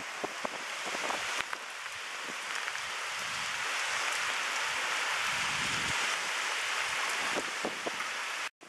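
Storm wind and rain hissing steadily, slowly growing louder, with scattered sharp clicks and a low gust rumble about two thirds of the way through. It cuts off abruptly near the end.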